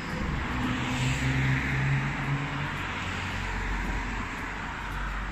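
A motor vehicle driving past: a steady low engine hum in the first few seconds, with road noise, then a deeper rumble from about three seconds in.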